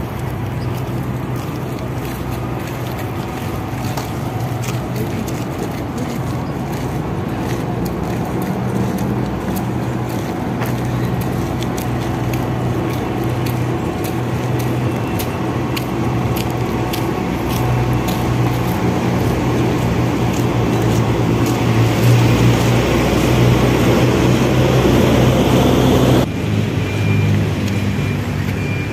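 Road traffic: vehicle engines running with a steady low hum over tyre and road noise. It swells louder in the last few seconds and then drops away suddenly near the end.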